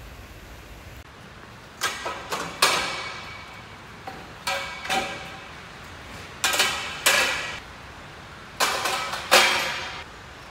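Steel square tubes clanking against each other as they are lifted out of a crate and set down, in four bursts of two or three sharp knocks, each leaving a metallic ring.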